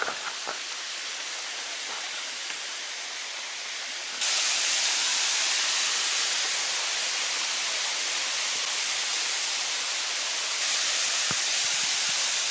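Steady rush of flowing water, which gets louder about four seconds in.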